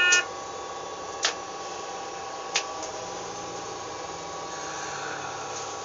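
Steady running noise in the cab of a railcar moving along the track, with a constant two-note hum and a few sharp clicks, one right at the start, one about a second in and one near the middle.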